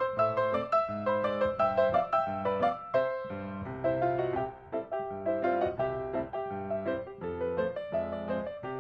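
Intro background music: a piano tune playing a run of quick notes.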